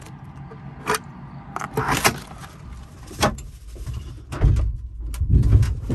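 Aluminium frame of a pop-up car-roof camper being pushed open by hand: irregular clunks and rattles about a second apart, with heavier, deeper thumps in the last second and a half.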